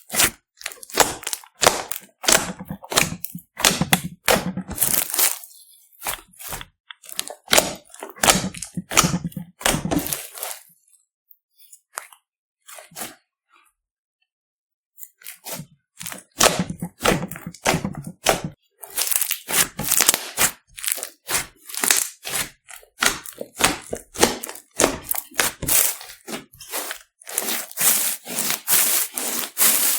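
Glossy slime being squished, stretched and folded by hand, giving dense runs of wet crackling and popping. The crackling stops for a few seconds in the middle, then starts again.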